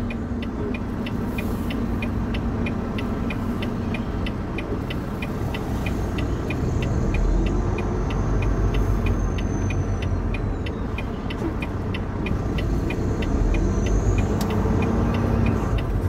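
Semi truck cab at low speed: the diesel engine rumbles steadily while the turn signal clicks evenly, about two and a half clicks a second. A faint high squeal comes and goes twice.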